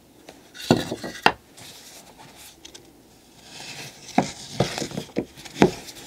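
Wooden boards being handled on a workbench around a clay slab: two sharp knocks about a second in, a scraping rub, then a quick run of about five knocks near the end as boards are lifted and set down.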